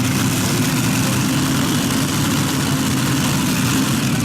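Heavy engine idling steadily.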